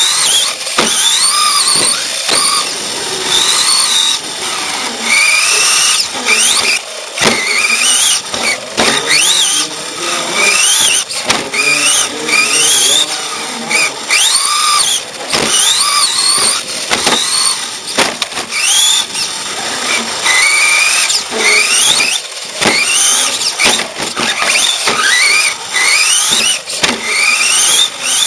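Onboard sound of a radio-controlled racing truck's electric motor whining, rising in pitch on each acceleration and falling off again, about every one and a half to two seconds as it laps, with sharp knocks and rattles from the chassis over the track.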